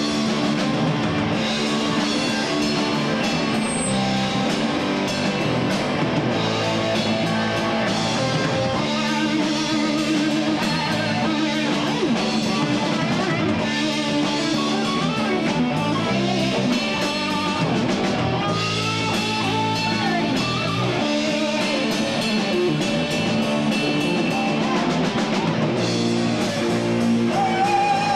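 Live rock trio playing an instrumental passage with no singing: electric guitar lines over electric bass and a drum kit.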